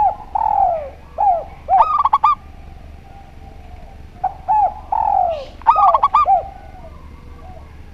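A spotted dove and a zebra dove cooing. Quick strings of clear, high notes alternate with lower, falling coos in two bouts, the second starting about four seconds in.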